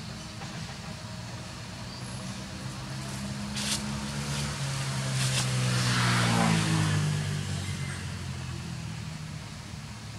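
A motor vehicle driving past: its engine and tyre noise build up, peak about six seconds in, then fade, the engine's pitch dropping as it goes by.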